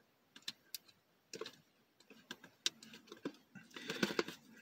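Small hard-plastic toy pieces clicking and tapping as they are handled and pushed together. The light clicks come irregularly and get busier near the end.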